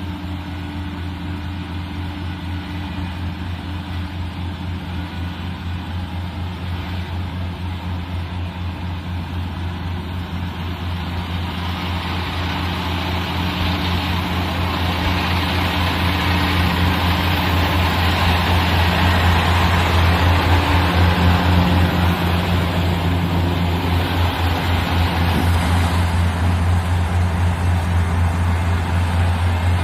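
Combine harvester's diesel engine running steadily with a deep hum, growing louder over the first twenty seconds as more mechanical clatter and rush builds up, then holding level.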